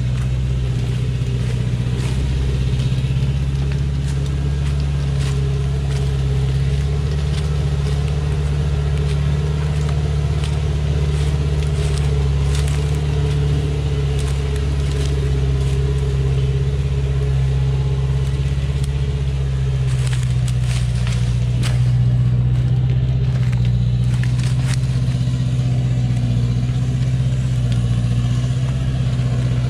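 Loaded logging truck's diesel engine running steadily as it creeps along a rough dirt forest track. Dry branches and brush crackle and snap under its wheels.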